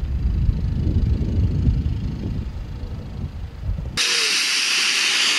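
A low outdoor rumble, then about four seconds in a sudden loud, steady hiss of a handheld CO2 fog jet spraying.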